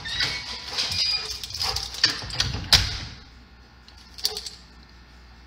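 A house door being opened and shut: a run of clicks and clatter from the handle and latch, with a sharp click as it closes near three seconds in, then a few faint clicks.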